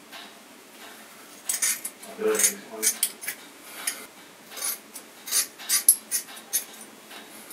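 Hair scissors snipping through hair, a dozen or so crisp metallic snips at an uneven pace, starting about a second and a half in.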